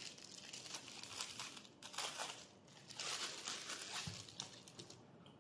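Plastic packaging crinkling and rustling in irregular bursts as it is handled, fading out near the end.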